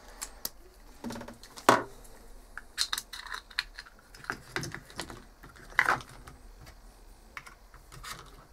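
Irregular plastic clicks and taps as a toy RC car's plastic chassis and battery compartment are handled on a tabletop, with a couple of louder knocks about two seconds in and near six seconds.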